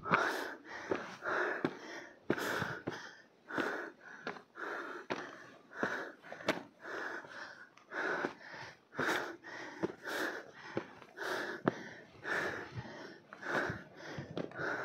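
A hiker breathing hard close to the microphone, a steady run of quick in-and-out puffs about two a second, with a few sharp clicks among them.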